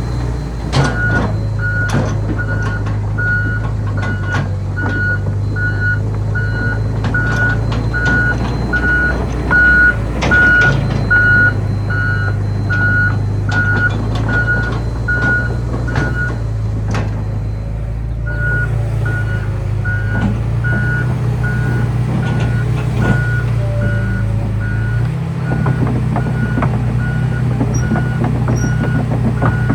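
Hitachi ZX250LC-5 excavator's diesel engine running with its motion warning alarm beeping steadily, roughly one to two beeps a second, and scattered sharp knocks from the working machine. The beeping stops for about a second a little past halfway and then carries on, and the engine note steps up near the end.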